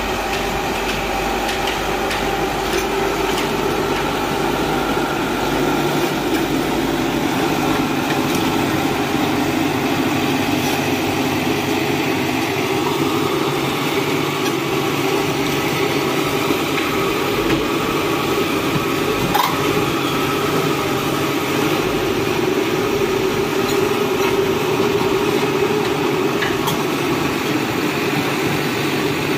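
Komatsu PC71 hydraulic excavator's diesel engine running steadily under working load while the machine pushes soil with its dozer blade.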